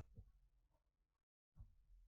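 Near silence, with two faint, brief sounds: one just after the start and one about a second and a half in.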